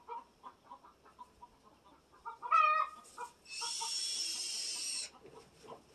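Chickens clucking in short repeated notes. A loud, short rising squawk comes about two and a half seconds in. A longer high-pitched sound follows from about three and a half to five seconds in.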